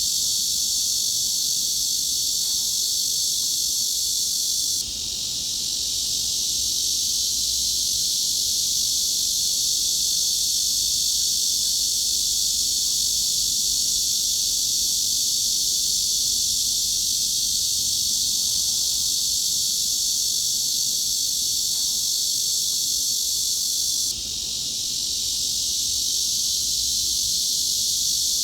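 Cicadas buzzing in a dense, steady, high-pitched chorus. The sound drops suddenly and swells back twice, about five seconds in and near the end.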